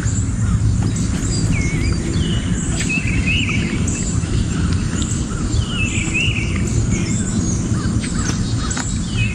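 Birds calling with short, repeated chirping notes over a steady low rumble.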